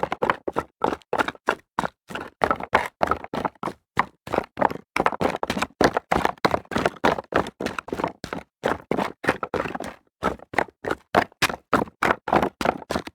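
Footsteps of someone running on rocks: a quick, even run of sharp steps at about four a second, with a short break about ten seconds in.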